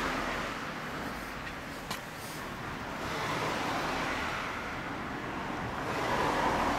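Outdoor background noise, like distant traffic, swelling and fading, with a single small click about two seconds in.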